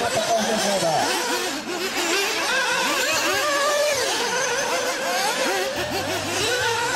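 Several radio-controlled off-road buggies' small engines revving up and down over and over, their high whines overlapping as the cars race around a dirt track.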